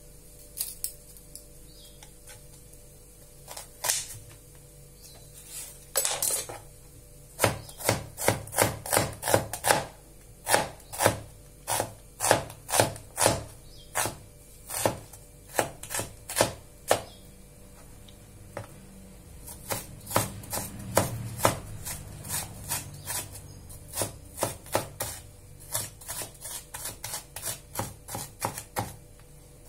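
Chef's knife chopping a red onion on a wooden cutting board: a few scattered knocks at first, then quick runs of sharp knife strikes, about four a second, with a short pause midway.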